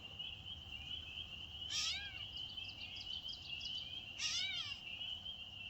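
Gray catbird giving two short, cat-like mewing calls, one about a second and a half in and one near four seconds in, over a steady high-pitched tone in the background.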